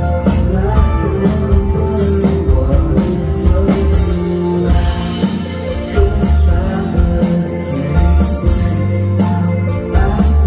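Rock band playing live: electric guitars and a drum kit, with a sung vocal.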